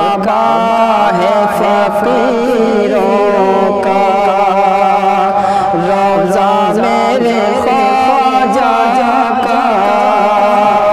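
A man singing an Urdu manqabat, a Sufi devotional song, in long, drawn-out, ornamented phrases over a steady low drone.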